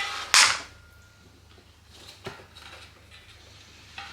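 Mountain bike tyres being handled: a short scraping rustle about half a second in, then a few faint knocks.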